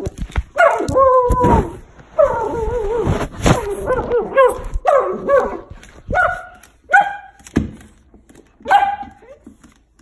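Goldendoodle puppy crying out during a seizure: high, wavering whines and yelps that run together for the first few seconds, then break into short separate yelps about once a second. A few thumps near the start.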